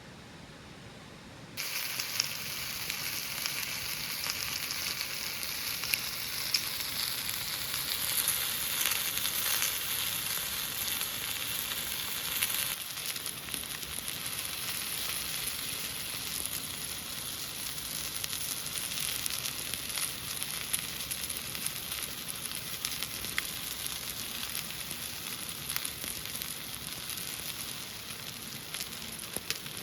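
Food sizzling as it fries in a hot pan, a steady hiss with occasional pops, starting abruptly just after the first second or so.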